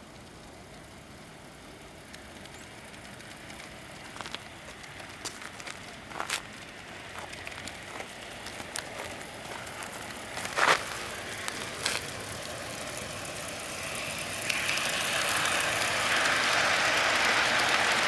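G-scale Bachmann Consolidation model steam locomotive and its cars rolling on outdoor track, the steady rolling noise of wheels on rail growing louder as the train approaches and loudest near the end. Scattered clicks and a few sharper clacks come before it.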